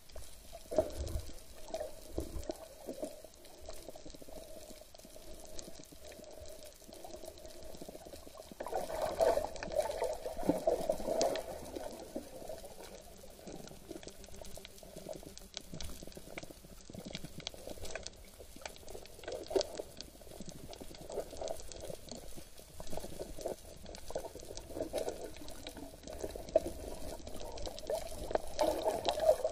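Underwater sound picked up by a submerged camera: water sloshing and bubbling around the housing over a steady hum, with scattered clicks, louder for a couple of seconds about nine seconds in.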